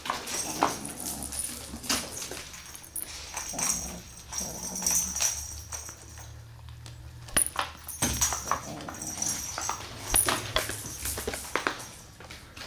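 Kittens playing with a wand toy with pom-poms on a string: irregular thumps and scrabbling of paws on a laminate floor, with rustling of the toy.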